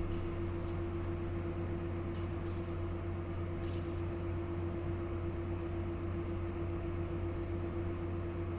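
Gaming desktop PC powered on, its cooling fans running in a steady hum with a constant tone.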